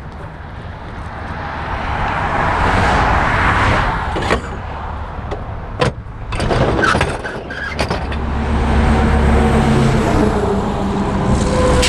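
Road traffic passing close by, a vehicle swelling up and fading away, with a few sharp knocks and clicks in the middle. Near the end a low, steady engine hum of a heavier vehicle builds.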